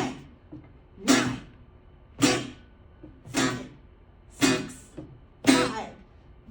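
Guitar strummed in a slow, steady beat, one chord about every second, each chord ringing and dying away before the next.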